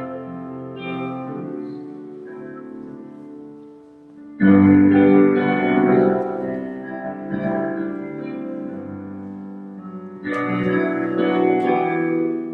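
Instrumental closing music on a keyboard instrument, sustained chords with two loud new chords coming in about four and a half and ten seconds in, each fading slowly.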